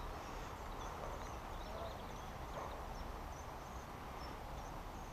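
Quiet outdoor ambience: a steady low rumble with faint, short high chirps repeating every half second or so.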